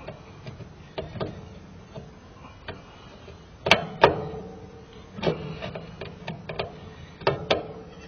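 Screwdriver clicking and scraping against a stubborn screw holding an air-conditioner condenser contactor in its sheet-metal electrical box: irregular sharp clicks and knocks, the loudest two close together near the middle.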